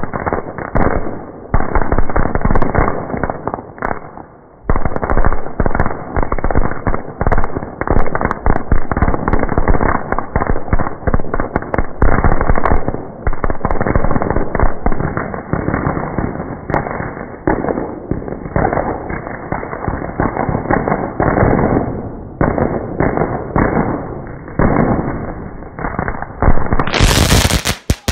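Fireworks going off: a dense, continuous run of rapid, irregular bangs and crackles, like a long string of firecrackers, with a brief louder burst near the end.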